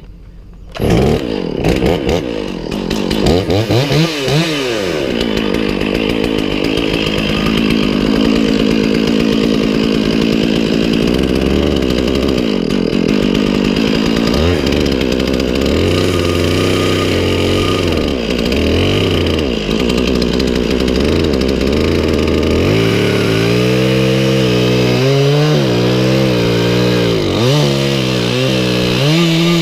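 Two-stroke chainsaw starting up about a second in, then running and revving, its engine pitch rising and falling. In the last several seconds the note drops lower and wavers, as the saw labours under load in the cut.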